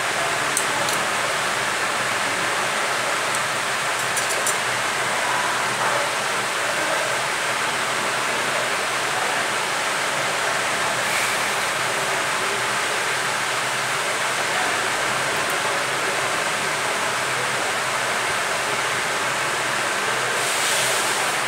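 Steady rushing hiss of blowing air, even in level throughout, with a few faint light clicks of small tools handled on the bench.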